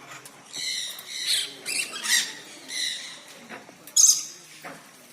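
Conure parrots calling: a run of short, harsh, high squawks, with the loudest and sharpest one about four seconds in.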